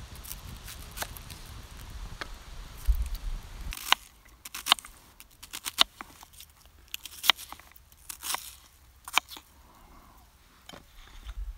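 Knife chopping an onion on a wooden cutting board: a run of irregular, crisp cuts.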